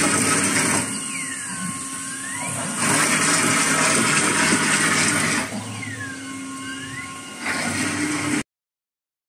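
Wall printer running, its print-head carriage moving in alternating louder and quieter passes of two to three seconds each, with a whine that dips and rises again during the quieter passes. The sound cuts off suddenly near the end.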